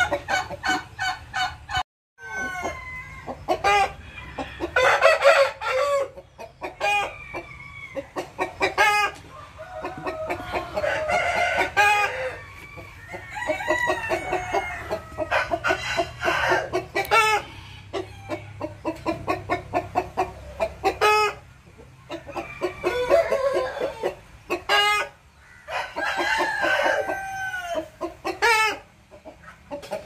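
Chickens clucking in repeated rapid runs of short calls, mixed with longer calls that PANN takes for rooster crowing, around 10–12 s and 26–28 s. The sound breaks off briefly about two seconds in.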